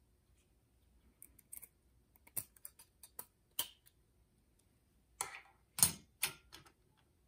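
Scattered clicks and clinks of steel coil springs and plastic retainers being handled and pressed into a DCT470 dual-clutch torque damper's steel housing, with a cluster of louder clinks about five to six seconds in.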